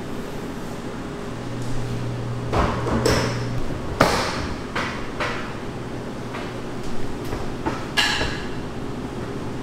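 Ceramic bowls being set down in a glass display case, giving a series of sharp knocks and clinks. The loudest knock is about four seconds in, with another near the end.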